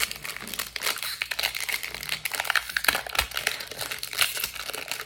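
Crinkling and crackling from football trading cards and their foil pack wrapper being handled, a dense run of small irregular crackles.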